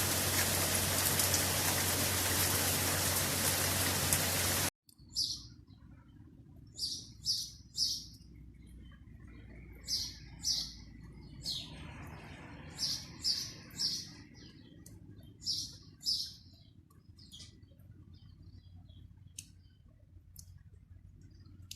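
Steady heavy rain, cut off abruptly about five seconds in; then a small bird chirping, short high calls repeated every second or two, often in quick pairs or threes, over a faint low background rumble.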